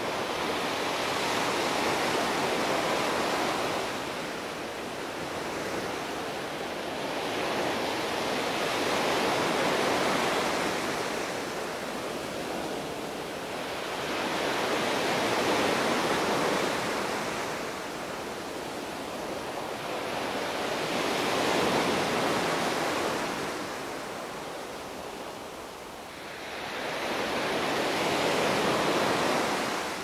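Small sea waves breaking and washing up a sandy beach, the surf swelling and fading in slow surges about every six seconds.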